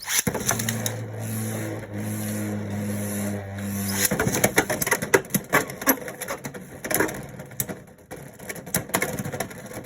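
Beyblade X tops launched into a plastic stadium. There is a steady spinning whine for about four seconds, then rapid irregular clacking as the tops collide and bounce off each other and the walls. The 3-60 Knight Shield on a resin 3D-printed Bound Spike bit is light and bouncy, and it gets burst in such clashes.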